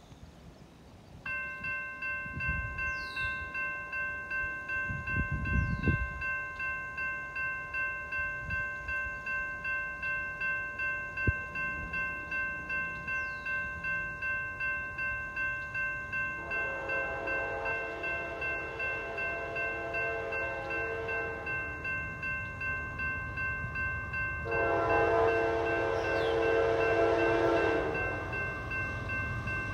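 NEG E-Bell electronic crossing bell starts about a second in and rings steadily in even pulses, warning of an approaching train. From about 16 s a CSX freight locomotive's horn sounds, with a louder blast from about 24 s that stops near the end.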